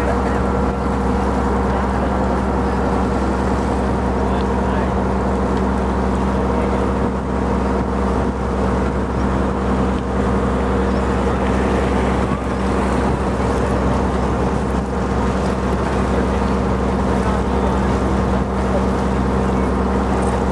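Engine of a river boat running steadily underway: a constant drone with steady low hums that neither rises nor falls.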